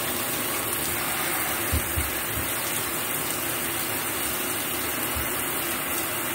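Shower running with a steady hiss of water spraying onto the shower floor and the rugged tablet lying on it. A few dull low thumps come about two seconds in and once more about five seconds in.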